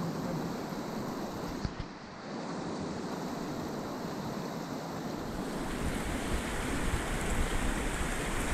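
Steady rushing of creek water, with wind buffeting the microphone in a low rumble that grows stronger in the second half.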